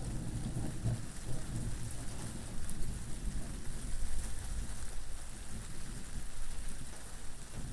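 Steady rain hiss with an uneven low rumble underneath, strongest in the first second or so.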